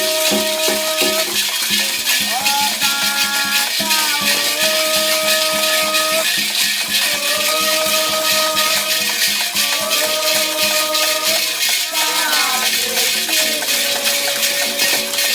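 Candomblé ritual song: a singing voice holding long, sliding notes over a hand rattle shaken in a fast, steady rhythm.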